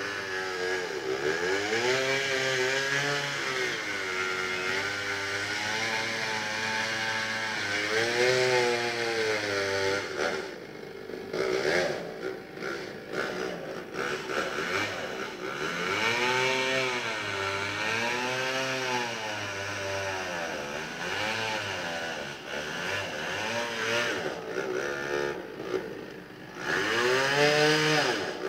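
An engine revving up and down over and over, each rise and fall lasting a second or two, with a steadier rumble underneath.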